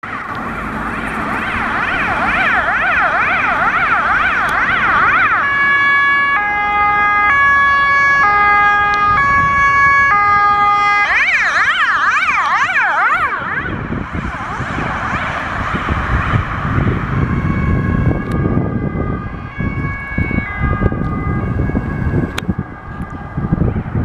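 Ambulance siren on an urgent run: a fast up-and-down yelp, switching to a two-tone high-low call, back to the fast yelp, then the two-tone again as it fades. Road traffic rumbles underneath, louder in the second half.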